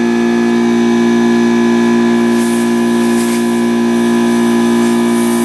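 Steady hum of an air compressor, with short blasts of compressed air hissing about two and a half and three seconds in and again at the end, as air is blown under a motorcycle handlebar grip to loosen it.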